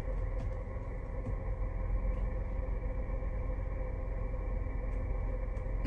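Car engine idling: a steady low rumble with a faint steady hum.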